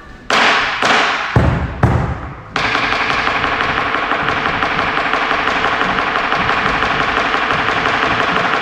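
Music playing loudly: a few strong hits in the first two and a half seconds, then a dense, steady track with held notes and a fine, even pulse.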